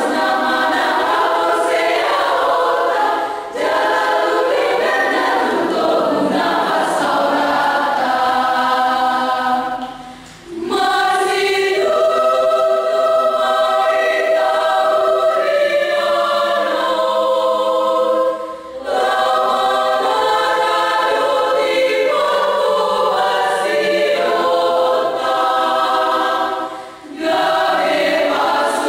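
Women's choir singing unaccompanied, held notes in sung phrases with brief breaks between phrases every seven or eight seconds.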